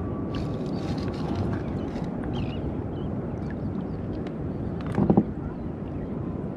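Steady wash of ocean water around a fishing kayak, with scattered light knocks and a short louder sound about five seconds in.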